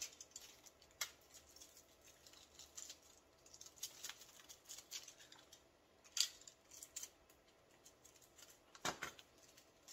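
Faint, scattered snips and clicks of a small hand cutting tool working tape and wires off a small battery-management circuit board. There is a sharper click about six seconds in and a duller knock near nine seconds.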